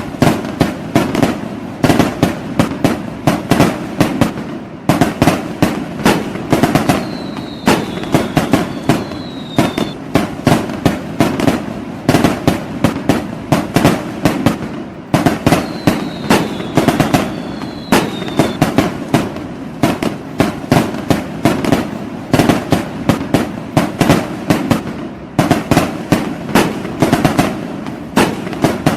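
Fireworks going off in a dense, continuous barrage of sharp bangs and crackles, several a second. Twice, about a quarter and a half of the way through, two short whistles sound one after the other, each falling slightly in pitch.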